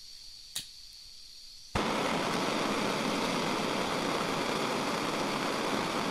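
A faint hiss and a single click, then, just under two seconds in, a steady rushing noise like water or wind starts suddenly and holds.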